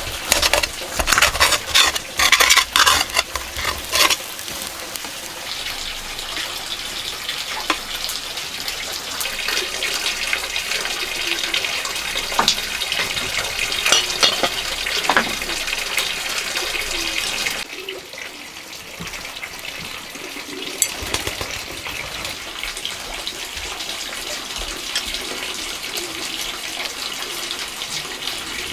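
Metal tongs scraping and tapping in an iron wok as an omelette sizzles in oil, for about the first four seconds. After that a steady hiss with scattered clinks, dipping briefly about two-thirds of the way through.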